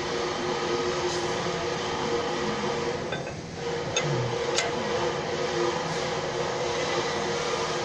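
Steady hum of running machinery, with two sharp metallic clinks about four seconds in as a hex key is worked on a blade-mounting bolt.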